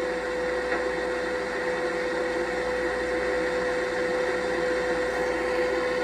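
Electric fan running steadily: an even motor noise with a steady hum.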